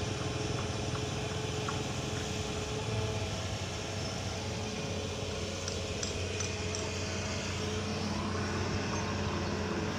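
An engine running steadily with an even, unchanging drone.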